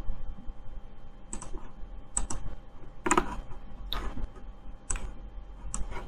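Computer mouse clicking: about seven short, separate clicks at uneven intervals, two of them close together like a double-click.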